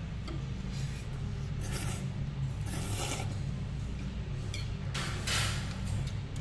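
Noodles being slurped from a bowl of soup in three short bursts, over a steady low hum.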